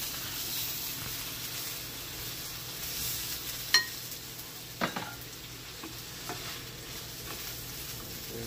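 Sausage links sizzling in a frying pan, a steady hiss. About halfway through, a metal fork turning them strikes the pan with two sharp clinks, the first and louder one ringing briefly.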